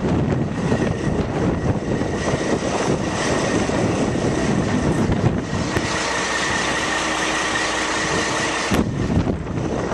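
Diesel engine of a Kenworth T800 concrete mixer truck running steadily, with a steady whine coming in for a few seconds in the second half.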